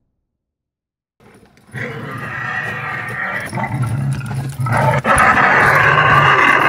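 Silence for about a second, then a dinosaur growl sound effect: a long, rough, low growl that grows louder about three seconds later and runs on to the end.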